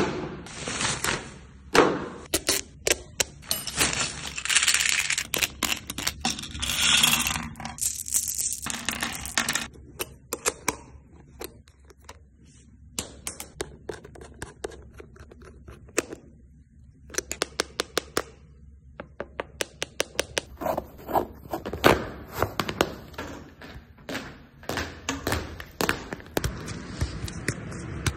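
Close-up handling sounds of Nike soft-ground football boots. In the first ten seconds there is a rustle of the plastic bag and packaging. After that come scattered clicks and knocks as fingers work the screw-in metal studs and plastic blades on the soleplate, with a quick run of clicks about two thirds through.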